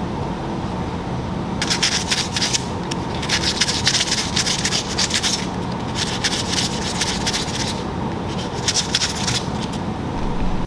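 Brisk hand rubbing and scuffing on the front of a cast-iron BMW M20 engine block with a shop rag and a hand-held sanding disc, cleaning the surface for the timing-cover gasket. It comes in several quick bursts of strokes starting about a second and a half in, over a steady hum.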